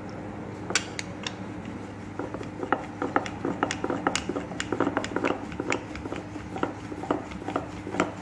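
Wooden rolling pin rolled back and forth over a slice of bread on a stone countertop, giving irregular light knocks and clicks against the stone, sparse at first and coming thick and fast from about two seconds in, over a steady low hum.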